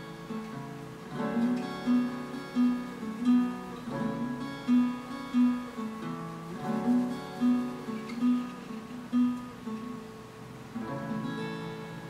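Background music: an acoustic guitar playing a strummed, picked pattern with a steady beat.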